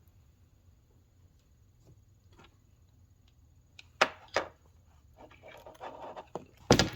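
Metal-framed sunglasses being handled and set down: a few sharp clicks and taps, two close together about four seconds in and a louder one near the end, with light rustling between.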